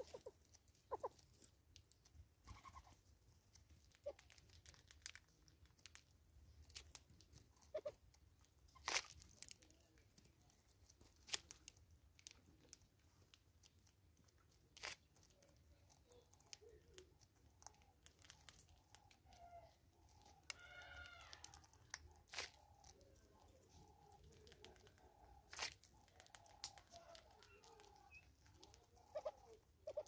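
Scattered sharp taps and crunches of hornbills and squirrels feeding on seed at a clear seed jar on a stump, beaks knocking on the jar and wood. In the second half a bird calls faintly in a series of short repeated notes, briefly higher and fuller about 21 seconds in.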